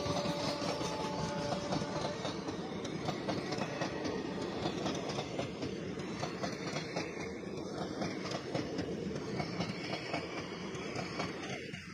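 Passenger coaches of an express train rolling past close by at about 52 km/h, the wheels clattering fast and unevenly over the rail joints over a steady rumble.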